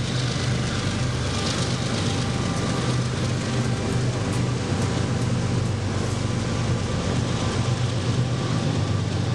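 Steady low engine hum over a constant wash of traffic-like noise, unchanging throughout.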